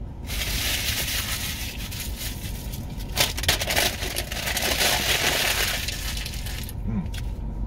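Paper burger wrapper being crumpled and scrunched up: a dense, crackling rustle that stops about a second before the end.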